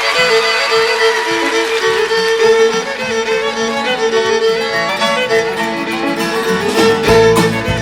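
Country music backing track with a fiddle playing an instrumental break between verses. A low bass and drum part comes in near the end.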